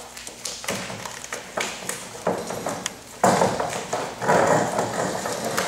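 Hands working a composite repair coil and its fittings on a steel pipe: irregular knocks, clicks and scraping, louder and rougher for a couple of seconds from about three seconds in.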